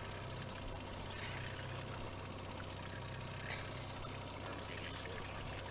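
Boat engine running steadily at low trolling speed, a constant low hum.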